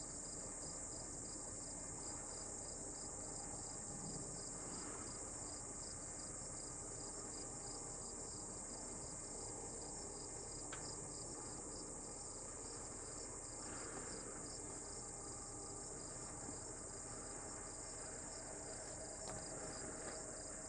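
Field insects chirring: a steady, high-pitched drone with a faint, regular pulsing just below it.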